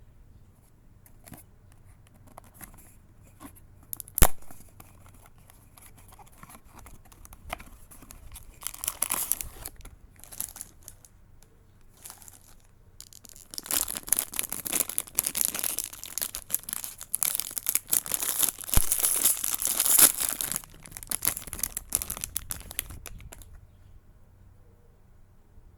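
Blind-box packaging being torn open and crinkled: a sharp click about four seconds in, short bursts of tearing a few seconds later, then a long stretch of rustling and tearing that stops a couple of seconds before the end.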